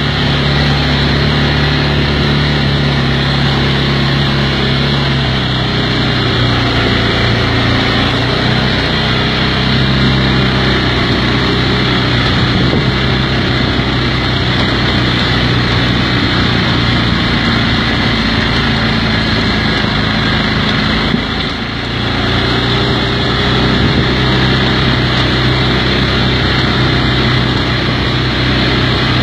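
Kymco MXU 500 quad's single-cylinder engine running as it rides along a dirt track, steady for most of the time, easing off briefly about three-quarters of the way through before picking up again.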